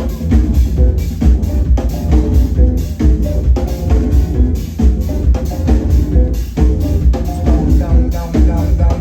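Live band playing an instrumental passage: a steady drum-kit beat with kick and snare over heavy bass, with no singing.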